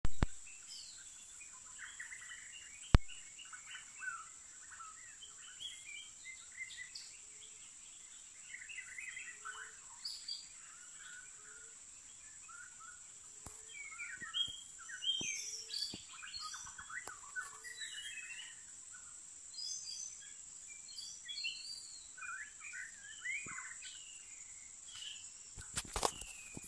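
Forest birds singing and calling in a jumble of short, varied phrases over a steady high-pitched tone. There is one sharp click about three seconds in, and a brief burst of rustling noise near the end.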